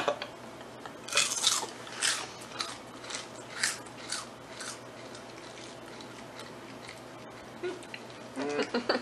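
Funyuns, crunchy onion-flavoured corn snack rings, being bitten and chewed close to the microphone: a run of irregular crisp crunches over the first few seconds, then fading to quieter chewing.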